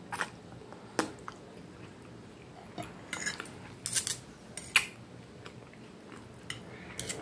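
Knife and fork clicking and scraping against a dinner plate while meatballs are cut, a handful of sharp clinks with quiet chewing between them.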